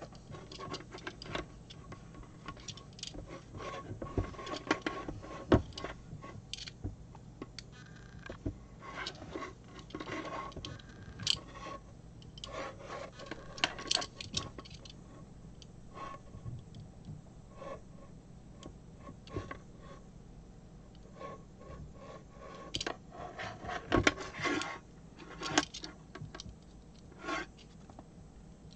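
A red network cable and a small plastic cable stripper handled on a wooden tabletop as the cable's outer jacket is stripped: irregular rubbing and scraping with scattered sharp clicks, loudest about four to six seconds in and again around twenty-four seconds in.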